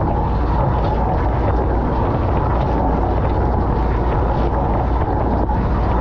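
Dishwasher in its wash cycle, heard from inside the tub: water spraying and splashing steadily over the dishes and racks, with a low hum underneath.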